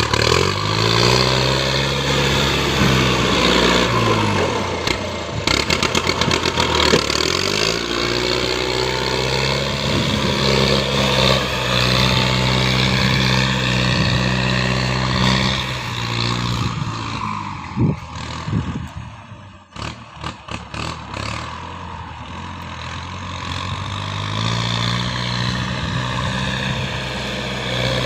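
An engine running, its pitch dropping and rising several times as it is revved and eased off. About two-thirds of the way through it quietens briefly, with scattered knocks and clicks, then runs steadily again.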